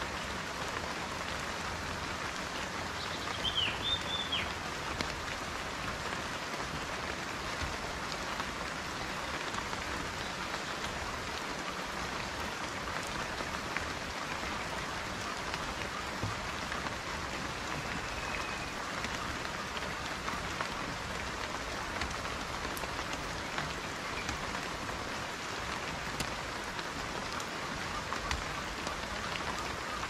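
Steady rain falling: an even hiss of many small drops. A short high chirp comes about three seconds in.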